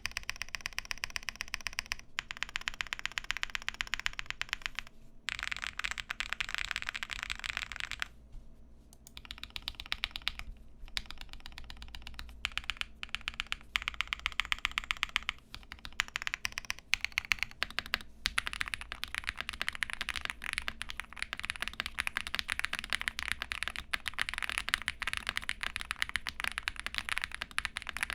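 Fast, continuous typing on a custom mechanical keyboard with lubed and filmed Durock POM linear switches, a polycarbonate plate and CRP PBT keycaps. The keystrokes make dense, even clacks, with a brief pause about a third of the way through.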